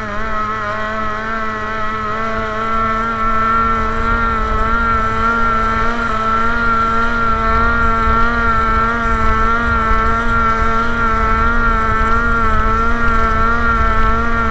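Engine of a small wooden racing boat running at speed, heard from on board: a loud, steady drone that wavers slightly in pitch. A low rumble of water and wind runs underneath, and the sound grows a little louder over the first few seconds.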